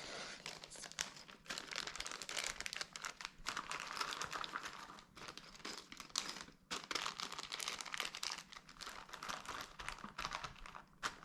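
Plastic zip-lock bags crinkling as they are handled, squeezed flat to push the air out and packed into the box, on and off with short pauses.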